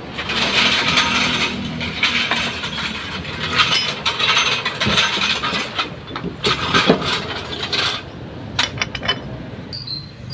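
Clinking and scraping of metal tools and parts, with a quick cluster of sharp clicks near the end.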